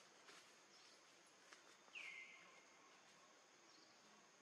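Faint outdoor ambience with a steady high insect drone. About two seconds in, a short high animal call drops in pitch and holds for about half a second.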